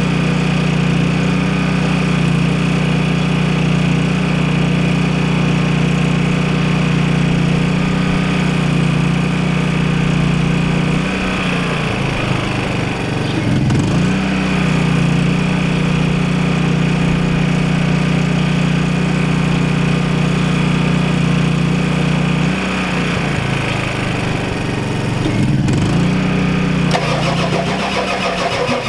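A 1993 Ford F-250's 7.3L IDI V8 diesel engine running unevenly, its note sagging and recovering twice, about eleven seconds in and again from about twenty-three seconds. The owner believes a weak injection pump isn't getting enough fuel to the new injectors.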